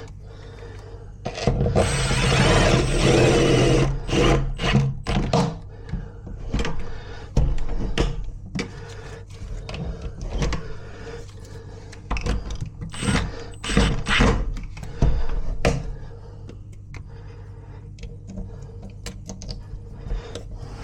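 Tools working on lock or window hardware: a dense burst of noise about two seconds in, then scattered sharp clicks and knocks.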